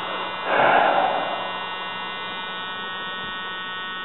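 A steady buzzing hum made of many even tones, with a short rush of noise lasting under a second about half a second in.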